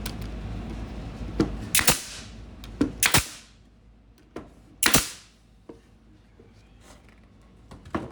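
Nail gun firing three sharp shots a second or two apart, with a few lighter clicks and knocks around them, tacking a freshly glued joint in a wooden box.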